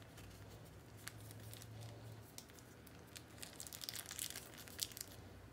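Small plastic dressing sachet being squeezed and crumpled by hand: faint crinkling and crackling that gets busier about three and a half seconds in.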